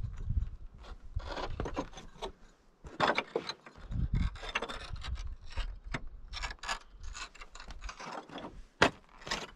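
Hiking footsteps crunching and scraping on a rocky, gravelly trail: an irregular series of steps, about two a second, over a low rumble.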